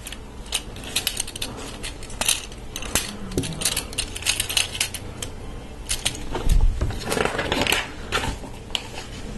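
Plastic LEGO Technic parts clicking and clattering as a partly built chassis is handled, folded and its pieces pressed into line, with many short sharp clicks and one dull thump about two-thirds of the way through.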